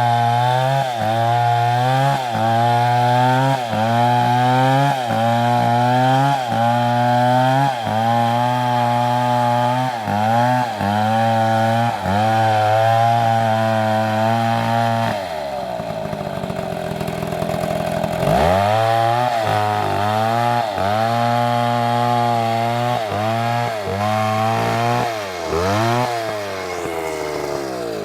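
A two-stroke Stihl chainsaw is running at high revs, cutting wood. The engine pitch dips and recovers about once a second as the chain bites under load. About 15 seconds in the revs fall away for a few seconds, then climb back up and the repeated cutting dips resume.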